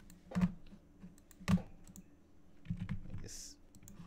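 Computer keyboard and mouse clicks while working at a desk: a few sharp clicks, the two loudest about half a second and a second and a half in, with fainter ticks between.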